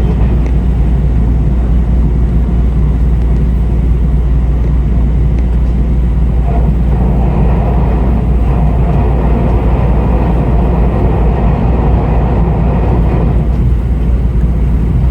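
Passenger train running: a steady low rumble with a rushing track noise that grows louder about six seconds in and eases again near the end.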